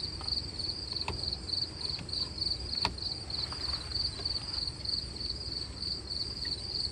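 Insects chirping steadily in an even, rapid pulsing rhythm, with a few sharp clicks about a second and about three seconds in.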